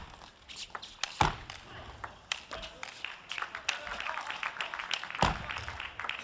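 Table tennis rally: the celluloid ball clicking back and forth off the rubber bats and the table, several hits a second. The sharpest strikes come about a second in and again near the end.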